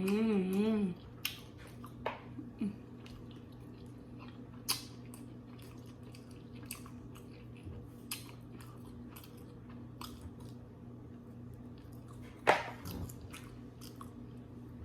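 Wet chewing, lip smacks and small clicks of someone eating, with a wavering hummed "mmm" in the first second and the sharpest smack about 12 seconds in.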